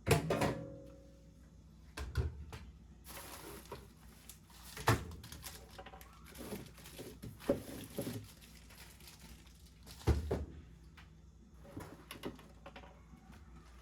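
Several sharp thunks and knocks of household objects being handled and set down, the first with a brief ringing tone, over quiet background music. A soft hiss runs through the middle.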